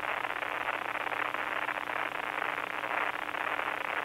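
Steady hiss of radio static on the shuttle's air-to-ground voice loop between transmissions, with a faint steady hum under it.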